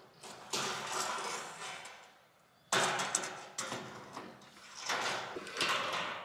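Corrugated sheet metal being handled while it is measured and marked, giving several sudden scrapes and rattles that each fade over a second or so.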